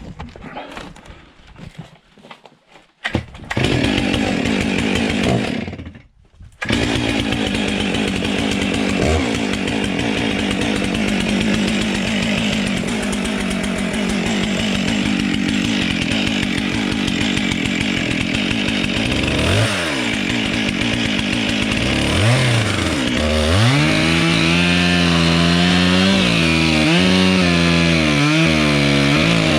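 Chainsaw starting up about three seconds in, cutting out briefly, then running and sawing into wood. In the last few seconds its engine note rises and falls repeatedly as the revs change in the cut.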